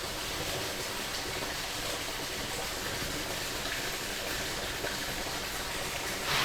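Creek water running steadily, an even rushing sound, with one short louder sound near the end.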